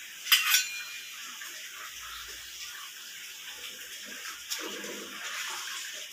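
Water at a rolling boil in a wok, a steady bubbling hiss, with a few sharp clicks of a spatula scraping pounded cassava leaves off a plate into it.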